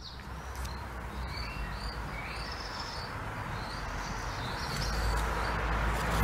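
Small birds chirping in short, high repeated notes over street background noise. A car's engine and tyre noise grow louder near the end as it approaches.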